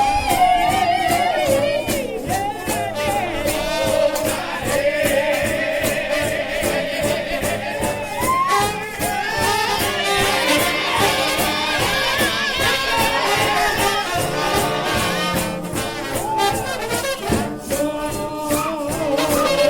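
A trombone-led gospel shout band playing a fast shout, with gliding brass melody lines over a steady, driving percussion beat.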